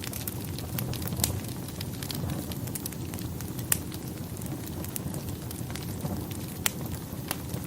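Wood fire burning in a fireplace: a steady low rumble of flames with irregular sharp crackles and pops, a few of them louder than the rest.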